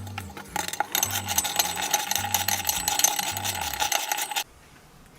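Ratchet wrench with a 14 mm socket clicking rapidly as bolts are tightened, metal clicking on metal. It starts about a second in and stops abruptly a little over four seconds in.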